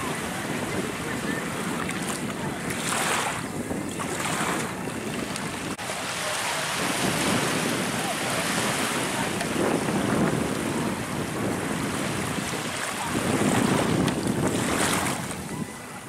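Black Sea surf washing in, rising and falling in swells, with wind buffeting the microphone.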